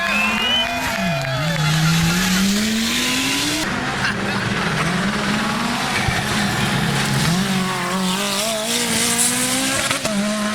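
Group B-era rally car engines revving hard, their pitch climbing and dropping with gear changes, over tyre and skid noise. About four seconds in, the sound cuts abruptly to another car running at lower, steadier revs.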